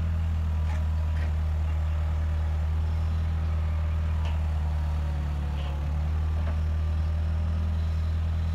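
Bobcat skid-steer loader's engine running steadily under load as its hydraulic auger bores a fence post hole into the ground.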